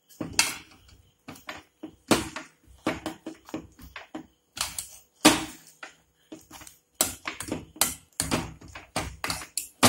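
Steel ladle knocking and scraping against the inside of an aluminium pressure cooker as cooked tapioca and sardines are mashed, in many quick, irregular knocks.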